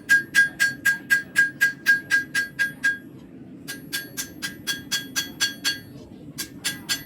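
Forging hammer striking a hot carbon-steel knife blade on an anvil, about four ringing blows a second. The blows come in three runs with short pauses, and the later runs are lighter.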